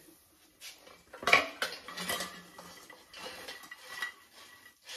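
Hash brown fries tipped out of a plastic-coated air fryer basket onto a ceramic plate: a string of clattering knocks and scrapes, the loudest about a second in.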